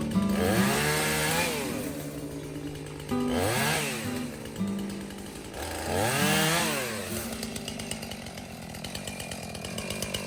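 Chainsaw engine revved up and dropped back three times, each a quick rise and fall in pitch, over steady background music.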